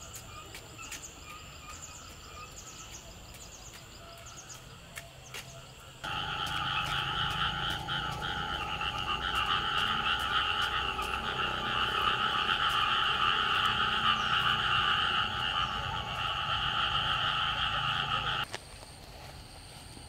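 A loud, dense chorus of frogs calling together, which starts suddenly about six seconds in and cuts off shortly before the end. Before it there is only faint scattered chirping of insects and birds.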